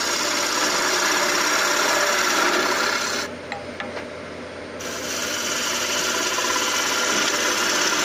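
Roughing gouge cutting a spinning spalted-birch blank on a wood lathe: a steady, dense shaving hiss. About three seconds in, the cut stops for about a second and a half, then resumes.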